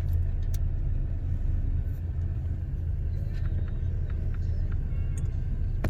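Steady low rumble of a car heard from inside the cabin, with a few faint clicks scattered through it.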